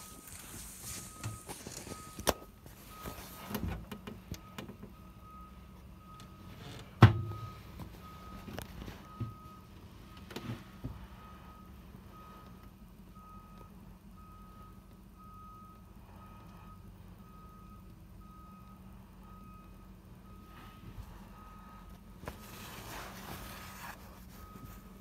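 A truck's reversing alarm beeping steadily at one pitch, about three beeps every two seconds, over a low engine hum. A sharp knock about seven seconds in, with a few lighter knocks around it.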